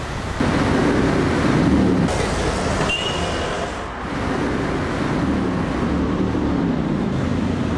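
City road traffic: car and engine noise of vehicles passing on a street, with one vehicle's engine pitch bending as it goes by. The sound changes abruptly a few times, and there is a brief high squeal about three seconds in.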